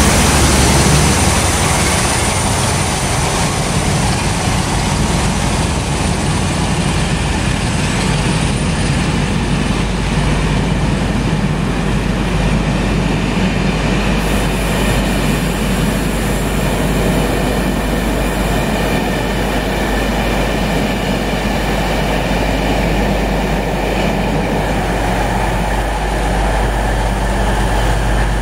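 Class 47 diesel locomotive D1924 running past, its engine strongest in the first second or two, then a long train of passenger coaches rolling steadily by on the rails.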